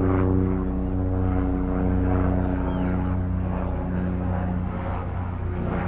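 A steady, low-pitched engine hum that holds an even pitch throughout.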